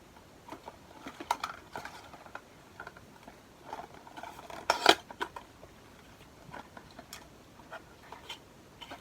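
Hands opening a small advent calendar box and handling the packaging inside: scattered clicks, scrapes and light knocks, the loudest a short clatter about five seconds in.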